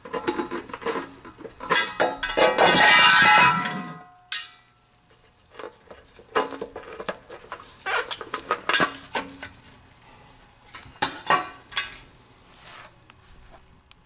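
Metal clattering and clinking: a loud rattling burst with a ringing tail about two to four seconds in, then scattered clicks and clanks as the sheet-metal element access cover of an electric water heater is worked loose and taken off.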